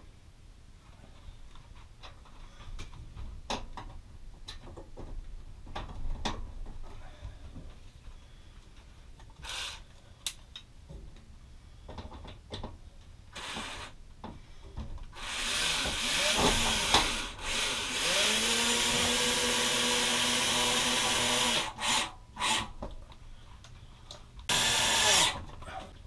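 Cordless drill driving the microwave's upper mounting bolts, coated with threadlocker, into the bracket. After some scattered handling clicks the motor runs for about six seconds, its whine rising onto a steady pitch. Then a few short bursts near the end snug the bolts tight.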